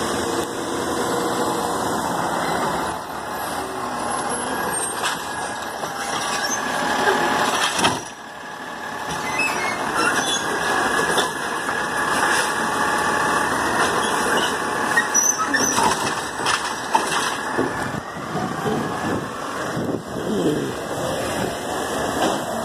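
Automated side-loading garbage truck working at the curb: engine running while its hydraulic arm lifts a wheeled trash cart, tips it into the hopper and sets it back down, with a run of knocks and clatter about halfway through.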